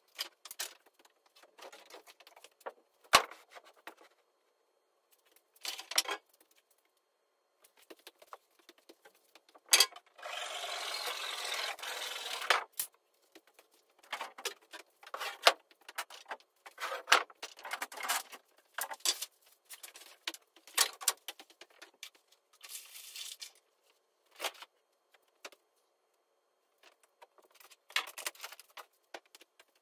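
Timber boards being handled and laid down: scattered wooden knocks and clatters, with a steady scraping sound lasting a couple of seconds near the middle.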